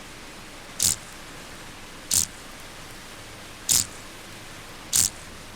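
Common field grasshopper singing: four short, high-pitched chirps, one every second and a half or so, over a steady hiss.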